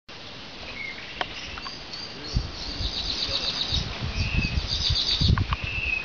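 Tui singing: clear whistled notes and short glides mixed with sharp clicks and fast high chattering runs. A low rumbling noise sits under the middle seconds.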